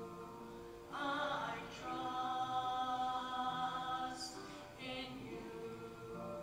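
Choral music: a choir singing slow, long-held notes.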